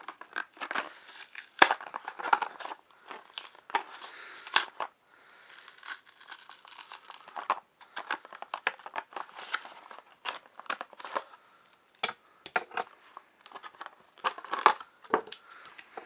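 Packaging of a wooden toy train engine being opened by hand: irregular crinkling, rustling and tearing with many small clicks.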